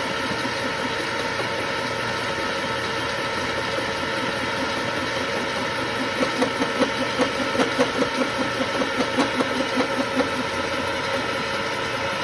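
Milling machine running a 4-inch indexable face mill with round inserts, freshly set to the same height, taking a test cut across a rough steel block. The machine hum is steady, and from about halfway through there is a regular pulsing about three times a second.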